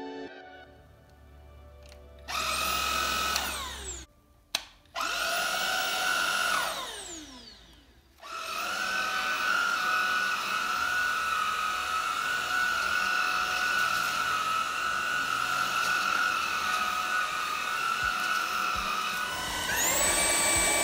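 Tineco A10 Hero cordless stick vacuum's motor spinning up and winding down as it is switched on and off twice. It then runs steadily on normal suction, and near the end its pitch steps up as it is switched to max suction.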